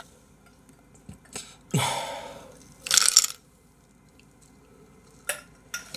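Ice rattling and crunching in a glass of iced drink as it is sipped, in a few short bursts about two and three seconds in and once more near the end.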